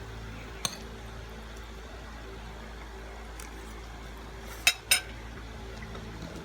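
Eating utensil clinking against a dish while eating: a light click about half a second in, then two sharp clinks in quick succession about two-thirds of the way through. A steady low hum runs underneath.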